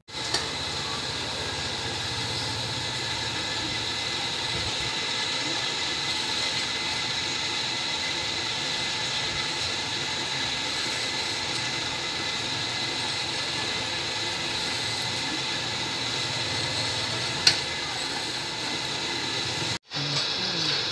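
Steady machine running noise with a faint constant whine, and one sharp click about three-quarters of the way through.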